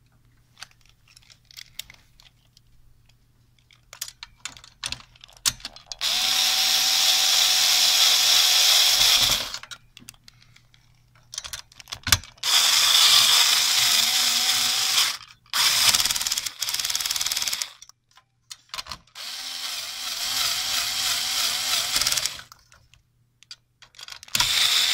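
A small power tool's motor, likely an electric screwdriver, runs in five bursts of two to three seconds each with a wavering whine, with clicks and handling noise between the bursts.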